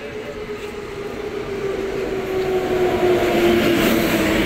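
Passenger train approaching and running past a station platform, its rumble and rail noise growing steadily louder as the locomotive draws level, with a steady whine that slowly falls in pitch.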